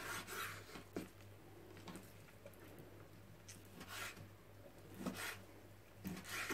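Knife slicing raw chicken breast on a wooden cutting board: a few faint, irregular soft cuts and taps of the blade against the board.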